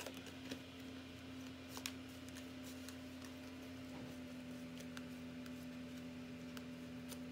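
Faint, scattered clicks of a card deck being spread and thumbed through by hand, over a steady low hum.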